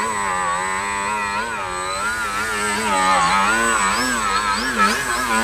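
Radio-controlled Yak 55M aerobatic model plane's motor and propeller holding a prop-hang hover, the note wavering up and down in pitch as the throttle is worked to keep it hanging.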